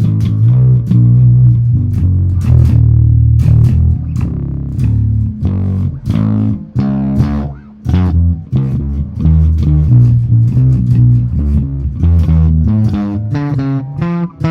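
Warwick Vampyre SN-5 five-string electric bass on its bridge pickup, played through a Neural DSP Quad Cortex amp modeller: a run of separately plucked bass notes with a brief pause about halfway through.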